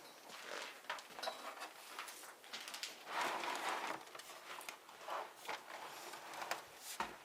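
Irregular rustling with scattered light clicks and clatter, from objects being handled and moved about; the loudest rustle comes about three seconds in.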